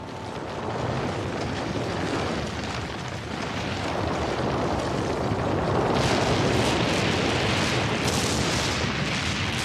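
Cartoon sound effects of a power core overloading and the base blowing up: a continuous rumble of explosions building in loudness, with sharp crackling bursts from about six seconds in.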